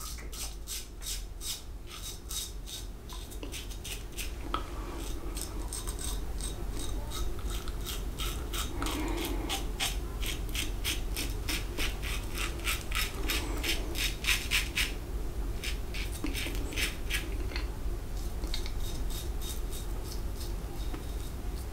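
Focus Tritok Concave aluminium double-edge safety razor, fitted with a Gillette 7 O'Clock Super Platinum blade, cutting three-day beard stubble through shaving lather: a crisp rasping scrape with each short stroke, about three strokes a second, in runs with brief pauses.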